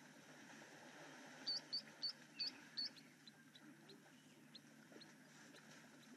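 A bird calling: five short, sharp, high chirps in quick succession about a second and a half in, then a run of fainter single ticking notes, over faint low background noise.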